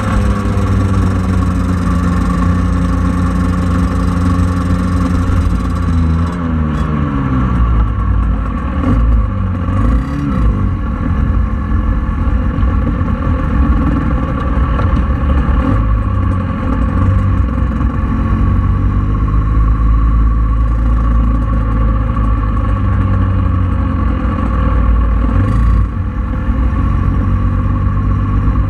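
Scooter engine running at a steady pitch, then falling in pitch as the scooter slows about six seconds in, with a short rise and fall, before settling into a steady idle while stopped.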